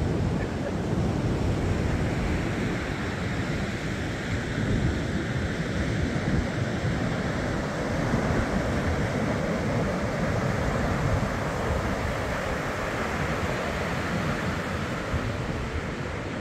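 Ocean surf washing onto the beach, with wind buffeting the microphone: a steady rushing noise with a low rumble.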